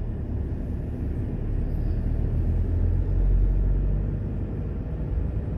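Car cabin noise while driving: a steady low rumble of engine and tyres on the road, swelling a little midway.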